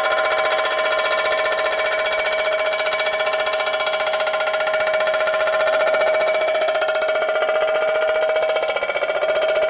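Metal-cutting machine tool with its cutter chattering in the work, a steady high-pitched ringing tone with rapid fine pulsing that wavers briefly near the end.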